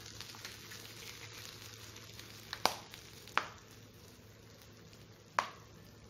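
Lamb, onions and bean sprouts sizzling steadily on a hot plate, with three sharp clicks a little after halfway and near the end.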